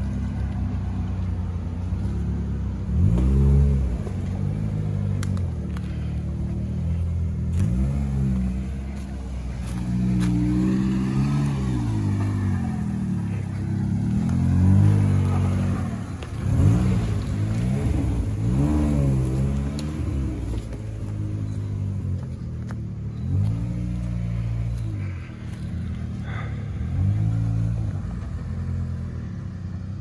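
Off-road SUV engine revving up and down in repeated swells while the vehicle crawls over a rough, rutted forest trail.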